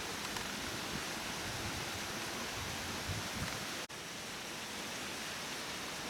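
Steady, even rush of a waterfall of about ten metres, heard from the slope above it, briefly cut off for an instant about four seconds in.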